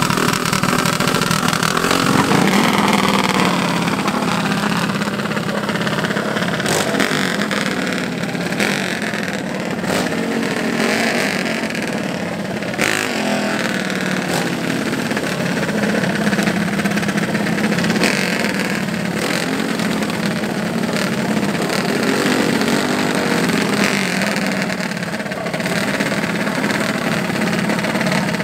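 Small single-cylinder racing mini bike engines running at idle, revved up and let back down every few seconds.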